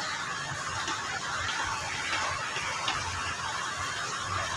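Steady background hiss with a faint low hum and a few faint small ticks.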